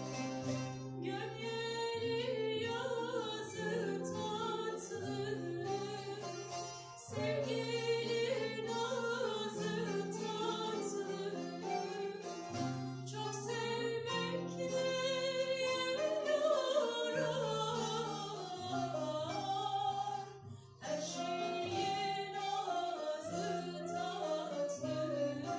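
A woman singing a Cypriot folk song in a wavering, ornamented voice, with instrumental accompaniment holding long low notes beneath her. The music drops out briefly about twenty seconds in, then goes on.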